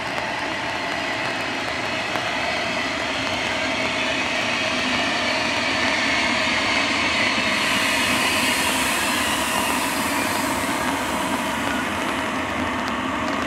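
Intermodal freight train hauled by an Alstom Prima BB 37000 electric locomotive rolling past, wheels rumbling steadily on the rails and growing a little louder midway, with thin high whining tones over the rumble.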